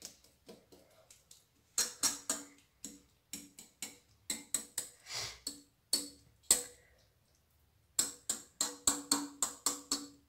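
A spoon tapping and scraping against a metal non-stick pan while a grated mixture is pressed flat into it. The taps come in irregular runs of several a second with short pauses, each with a brief metallic ring.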